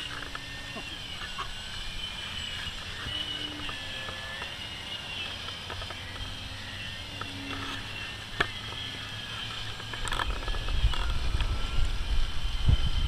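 Distant RC plane motor giving a thin, high whine that wavers in pitch as it flies overhead. From about ten seconds in, wind buffets the microphone with a low rumble.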